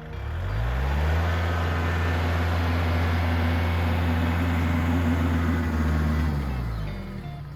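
Tractor engine revving up, running steadily under throttle for about five seconds, then dropping back near the end, as the tractor works to compact the ground.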